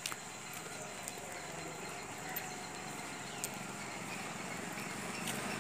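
Footsteps walking on a brick-paved lane, over a steady outdoor background. Toward the end a small motorcycle engine grows louder as it approaches.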